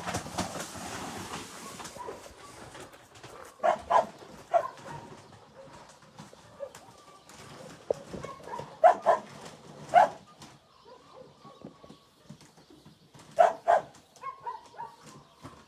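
Dogs barking: short barks in twos and threes with gaps of a few seconds between the groups.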